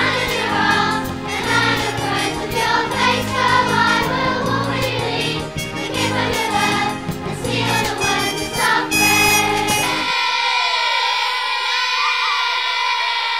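Group of voices singing a Christian song with instrumental backing. About ten seconds in, the bass and beat drop away, leaving a held chord that rings on and fades as the song ends.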